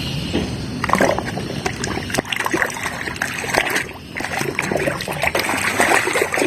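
Water splashing and sloshing as a plastic toy is washed by hand, with small irregular splashes and knocks.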